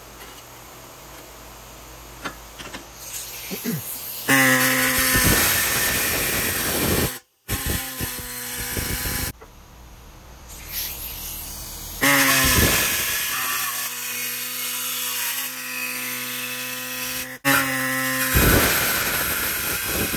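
A power tool running in four loud bursts with a steady whine, each ending abruptly.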